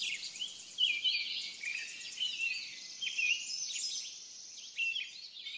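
Birds chirping: many short calls sliding up and down in pitch, over a steady high hiss.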